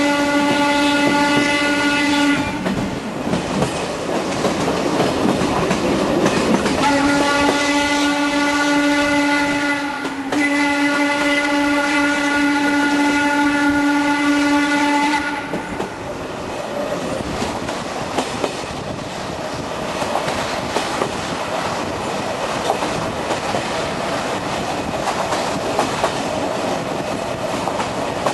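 Whistle of the steam locomotive BDZ 46.03 sounding a blast of about two seconds, then, after a few seconds of train noise, a long blast of about eight seconds broken once briefly. After it the train runs on with rail and running noise.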